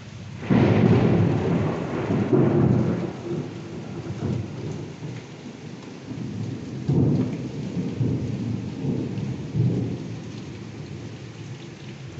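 A clap of thunder about half a second in, rumbling on in several swells, over steady heavy rain.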